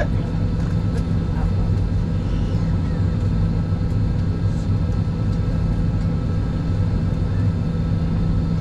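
Steady low drone of an airliner's jet engines and cabin air while taxiing, heard from inside the cabin.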